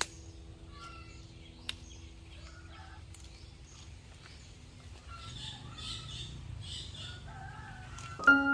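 Birds chirping in short, separate notes, with a couple of sharp clicks.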